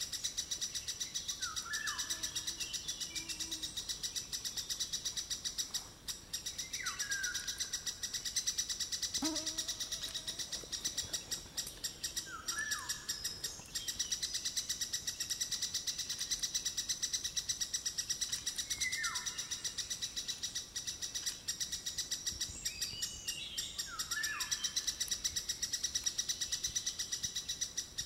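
Forest birds: five short, falling whistled calls, each dropping about an octave, come about every five or six seconds over a steady, rapid, high-pitched chirring.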